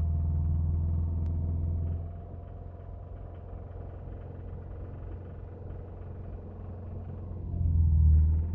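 Subaru EJ253 2.5-litre flat-four engine running with a knock. It runs louder for about two seconds, drops to a quieter idle, then revs up again near the end.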